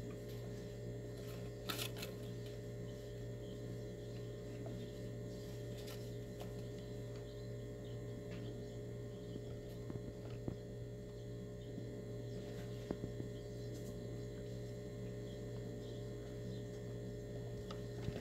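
Steady electrical hum with a low drone and a higher tone, over faint hiss, with a few faint clicks.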